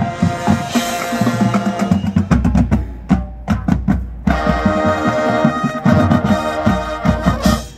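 High school marching band playing: brass chords over a steady pattern of drum hits and front-ensemble mallet percussion. The sound thins briefly about three seconds in, builds back up, and ends on a loud final chord that cuts off sharply just before the end.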